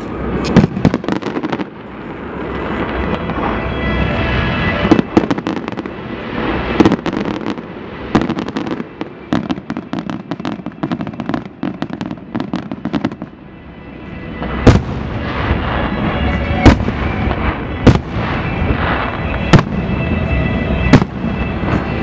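Fireworks going off: a dense run of bangs and crackling, then in the last third single loud bangs every second or two over a steady rumble.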